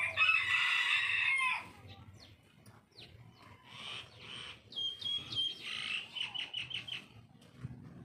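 A loud, drawn-out bird call lasting about a second and a half at the start, then scattered short high chirps, ending in a quick run of about six chirps a second.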